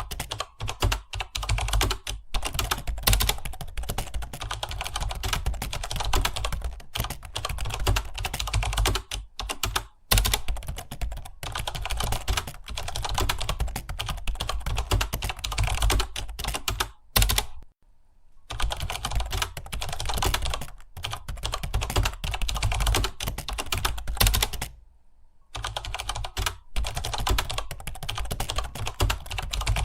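Fast, continuous typing on a computer keyboard: a dense run of key clicks, broken by two short pauses, the first a little past the middle and the second near three-quarters through.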